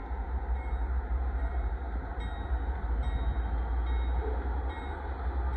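Diesel locomotives of a stopped Union Pacific freight train running with a steady low rumble, the train ready to move off.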